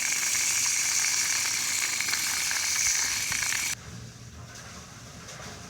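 Irrigation water gushing fast into a garden, a steady hissing rush that cuts off suddenly about two-thirds of the way through, leaving a much quieter background.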